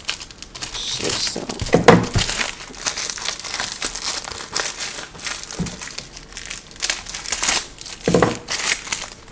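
Plastic packaging crinkling and rustling as it is handled and opened, with two louder bumps, about two seconds in and again near the end.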